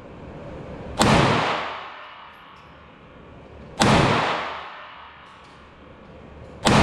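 Three 9mm shots from a Glock 19 in a CSG Micro conversion, slow aimed fire about three seconds apart. Each is a sharp crack with a long echo off the walls of an indoor range.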